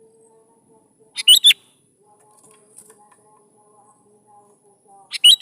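Sooty-headed bulbul (kutilang) singing: two short, loud phrases of quick whistled notes about four seconds apart, over a faint steady hum.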